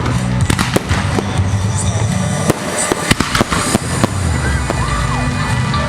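Fireworks going off in quick succession, many sharp bangs and crackles, over a music soundtrack with a strong bass line.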